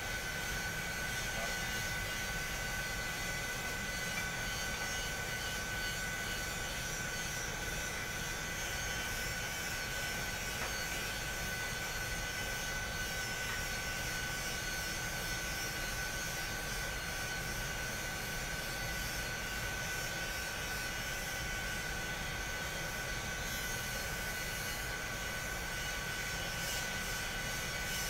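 Steady drone of a running biomass-fired boiler plant's fans and motors, with a constant high whine over it.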